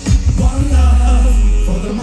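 Live pop music played loud through a concert sound system: a heavy, sustained bass with voices singing over it. The bass drops out near the end.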